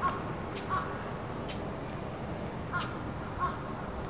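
A crow cawing: four short caws, two in quick succession near the start and two more about two and a half seconds later, over a steady low background hum.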